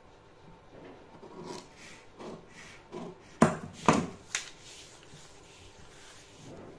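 Hands working a pattern on a cutting table: a few short rubbing, scraping strokes, then three sharp clacks about half a second apart a little past the middle, then quieter handling.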